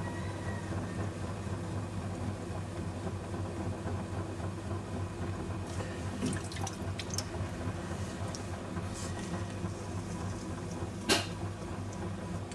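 Electric potter's wheel running with a steady hum while wet hands shape spinning clay, with wet rubbing and dripping of water and slip. A few small clicks past the middle and one sharp knock near the end.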